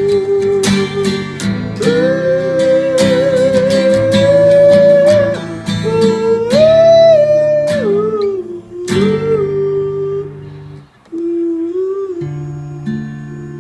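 Acoustic guitar accompaniment with a wordless vocal melody held and gliding over it, the close of a French pop song played unplugged. About eleven seconds in the melody stops and the music drops briefly, then the guitar carries on softly.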